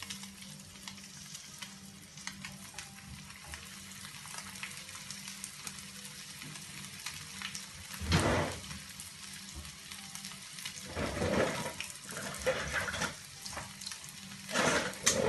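Skewered chicken-and-potato dough rolls shallow-frying in hot oil on medium flame, a steady sizzle. Louder bursts of sizzling come about eight seconds in and again twice toward the end, as more pieces go into the oil.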